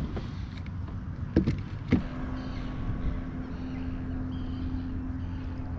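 Wind buffeting the microphone over low water noise around a kayak, with two sharp knocks about one and a half and two seconds in, and a steady low hum starting about two seconds in.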